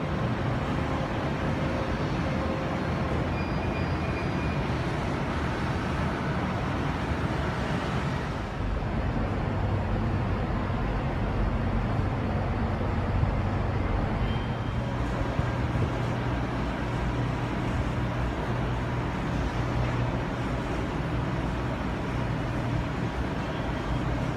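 Steady background rumble and hiss of distant road traffic, with no distinct events.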